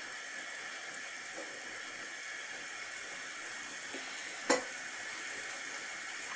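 Shrimp and potato curry bubbling and sizzling in a pan as its added water comes to the boil: a steady hiss. One sharp click about four and a half seconds in.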